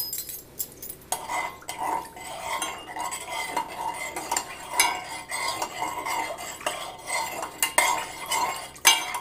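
Metal spoon stirring a thin liquid in a stainless steel saucepan, with repeated clinks and scrapes against the pot's sides and bottom, starting about a second in.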